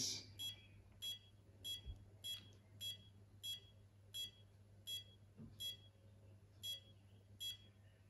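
Welock Touch41 smart lock's menu button beeping, one short high beep per press as its settings menu is scrolled. About eleven faint beeps come roughly two thirds of a second apart.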